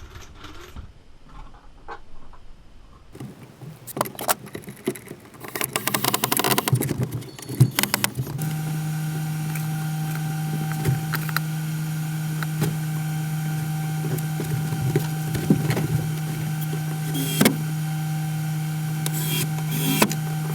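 Irregular knocks and clatter of handling, then, about eight seconds in, a steady low mechanical hum starts and runs on, with a few sharp clicks over it.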